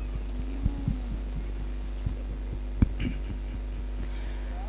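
Steady electrical hum from a public-address sound system, with several short dull thumps, the loudest near three seconds in, typical of a microphone being handled.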